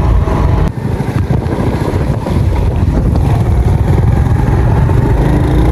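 Small motorcycle engines running while riding, with wind buffeting the microphone in a steady low rumble.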